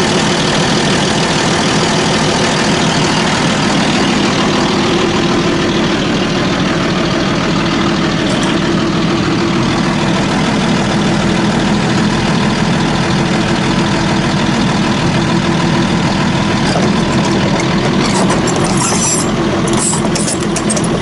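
Diesel engine of heavy machinery running steadily at idle. Some sharp metallic clattering comes in near the end.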